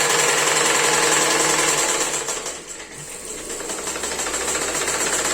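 Sewing machine driven by a repurposed Whirlpool washing-machine motor, running fast with a rapid needle clatter. About two and a half seconds in it slows almost to a stop, then speeds back up.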